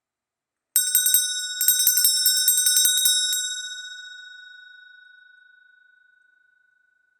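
Small brass Christmas handbell shaken in rapid strikes for about two and a half seconds, with a brief break after the first few, then left to ring out slowly. One clear high tone lingers longest as it fades.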